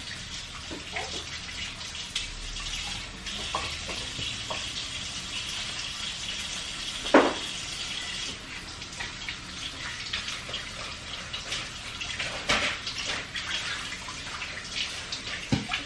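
Water running from a tap, with scattered knocks and clatters; a sharp knock about seven seconds in is the loudest sound.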